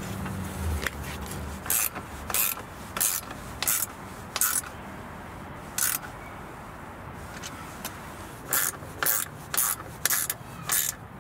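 Steel bolts being fitted through a bike rack's metal mounting bracket and their nuts threaded on by hand: about eleven short metallic scraping strokes, six spread over the first half and five in quick succession near the end.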